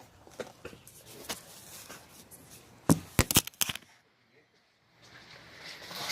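Rustling with scattered clicks, and a quick run of loud sharp knocks about three seconds in; the sound then drops out for nearly a second before the rustling comes back.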